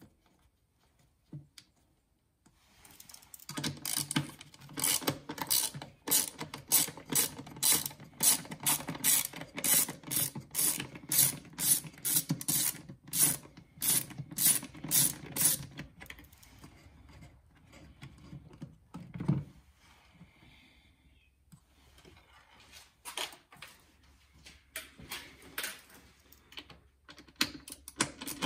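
Ratchet with a T20 Torx bit clicking as it backs out the screws on the air filter housing cover, in an even run of clicks that stops, then starts again near the end.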